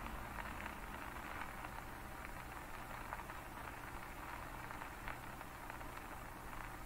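Heavy rain falling on a wet, flooded asphalt road: a steady hiss of many drops splashing into standing water.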